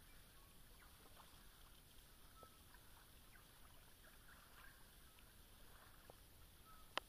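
Near silence at a calm shoreline: faint ticking of small ripples lapping at the water's edge, with a few brief faint chirps. One sharp click near the end is the loudest sound.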